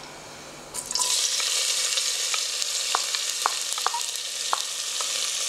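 Sliced onions hitting hot oil in a pressure cooker start sizzling about a second in, a steady hiss that holds. A few light knocks come from the wooden spatula scraping the onions out of a glass bowl.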